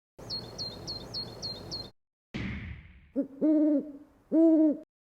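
Owl hooting: three low, hollow hoots, a short one followed by two longer and louder ones. Before them come a run of quick, high, repeated chirps and a brief hiss that fades.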